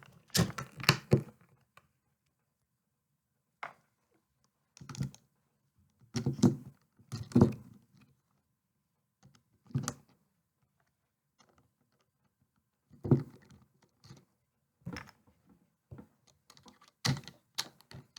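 Plastic Lego pieces knocking and clacking as they are handled and pressed together on a table: about a dozen separate short knocks scattered every second or two.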